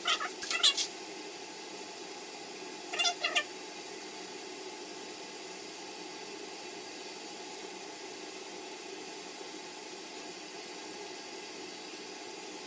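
Two short animal cries, one about half a second in and another about three seconds in, over a steady low hiss.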